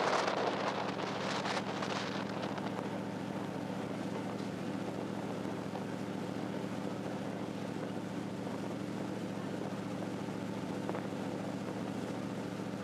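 A large passenger boat's engines running with a steady low hum, mixed with water rushing along the hull. Wind buffets the microphone for the first two seconds, then dies down.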